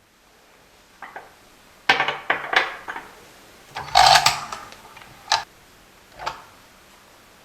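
Kitchen utensils and dishes knocking and scraping in a handful of short clatters, the loudest about four seconds in.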